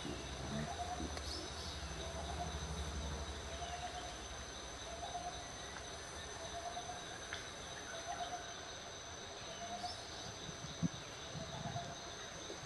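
Outdoor ambience: a steady high insect whine, with a bird repeating a short call about once a second. A low rumble fades out in the first few seconds, and a single sharp click sounds near the end.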